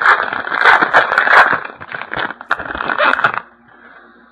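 Hockey card pack wrapper being torn open and handled, a dense crinkling and scraping that stops about three and a half seconds in.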